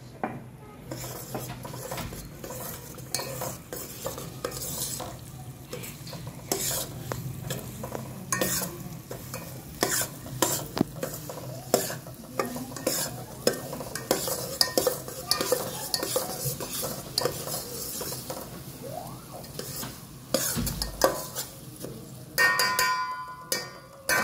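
Steel spoon stirring and scraping semolina as it roasts in hot ghee in a steel pot, with frequent sharp clinks of the spoon against the pot over a soft sizzle. A short ringing tone comes near the end.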